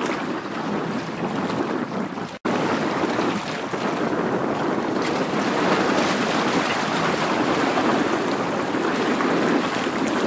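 Steady wind rushing over the microphone over harbour water, with no engine tones heard. The sound drops out briefly about two and a half seconds in, where the recording cuts.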